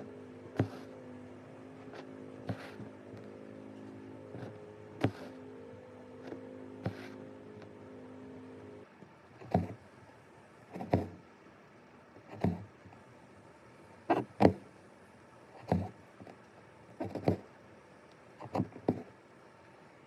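Needle and cotton embroidery floss being pushed and pulled through linen stretched taut in a wooden hoop, each stitch giving a sharp tick or pop every second or two. The stitch sounds become louder and more regular after about nine seconds. For the first nine seconds a steady low hum runs underneath, then stops abruptly.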